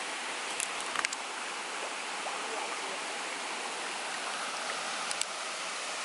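Steady rushing of a forest stream's flowing water, with a few brief clicks about a second in and again near the end.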